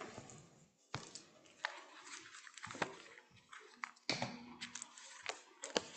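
Faint, scattered clicks and soft rustling of a person moving about: footsteps on a tiled floor and a service book being picked up at a low lectern.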